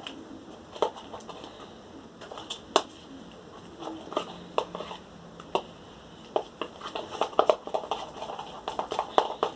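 Slime being stirred in a bowl: irregular sticky clicks and wet pops, coming faster and closer together in the second half.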